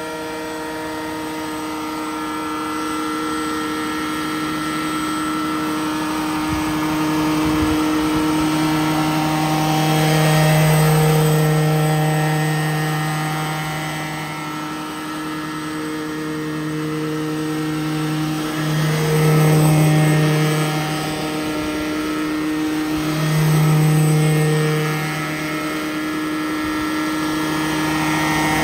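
Petrol-engined radio-controlled Vario Bell 212 scale helicopter flying low. Its engine and rotors run at a steady pitch, and the sound swells louder three times as the model moves nearer.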